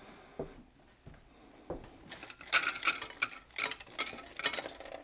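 A pie dish and the dried beans used as pie weights clattering and clinking at a kitchen sink as the beans are cleared out. There are a couple of single knocks, then from about two seconds in a quick, busy run of clinks and rattles.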